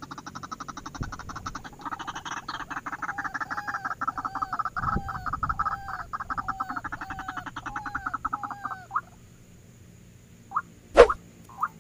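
White-breasted waterhens calling: a fast run of repeated notes over a lower, looping note that recurs about every half second, stopping about nine seconds in. A single sharp click follows near the end.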